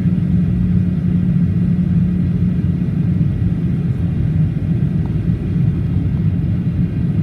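Steady low rumble inside the cabin of a Boeing 737-800 airliner in flight: its CFM56 jet engines and the airflow over the fuselage, heard from a window seat during the descent.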